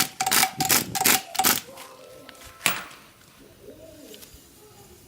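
Hammer blows on metal parts: a quick run of sharp, ringing strikes, about three a second. They stop about a second and a half in, and one last blow follows near the middle.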